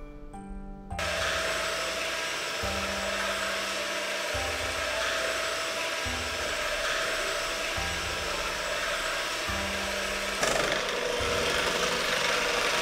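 Electric hand mixer switched on about a second in, its motor running steadily with a faint whine as the twin wire beaters mix fresh cream and chocolate in a metal bowl. It gets a little louder near the end. Soft background music plays underneath.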